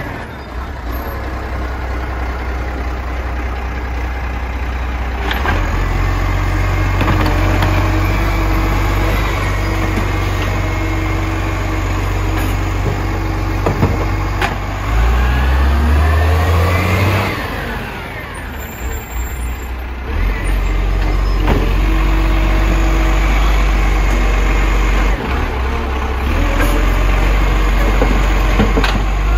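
Garbage truck engine running loud and steady, revving up and falling back about halfway through.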